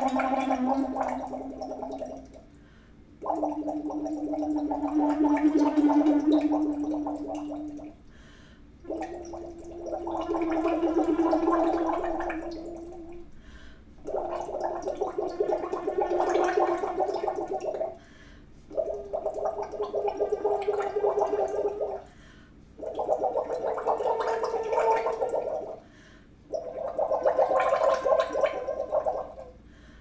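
Straw phonation into a glass of water: a woman's voice sustains notes through a straw, bubbling the water, a semi-occluded vocal tract warm-up. The notes climb a scale one per breath, about seven in all with short pauses between, several swelling and then fading on the held note (messa di voce).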